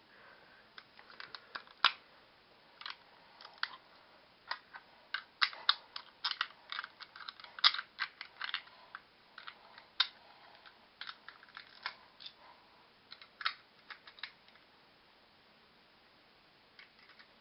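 Hard plastic toy parts clicking and knocking as a Garuda unit is handled and snapped onto a Mechagodzilla action figure: many short, irregular clicks, dying away near the end.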